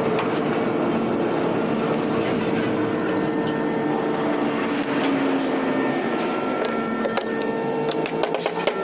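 CNC router running steadily with a constant whine, its cutter working wood, with scattered clicks and ticks towards the end.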